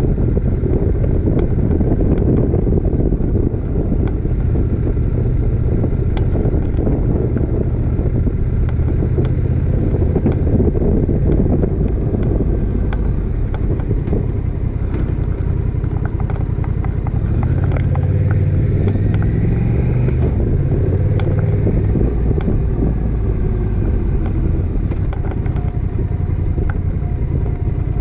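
Motorcycle engine running steadily at town speed, with wind rushing past the bike-mounted microphone. About two-thirds of the way through, the engine note shifts as the bike slows down.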